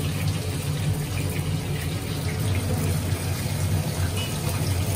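Crucian carp frying in oil in a wok, sizzling steadily while a spatula works the fish, with a steady low hum underneath.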